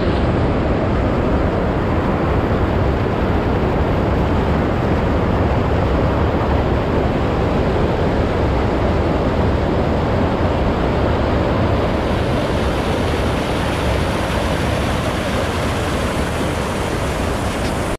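Water rushing and churning over a low concrete river weir, a loud steady rush close to the microphone.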